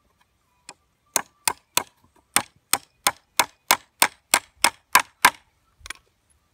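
Claw hammer striking a fastener into the crossed wooden legs of a drum feeder, about thirteen sharp blows at a steady three or so a second, then one lighter tap.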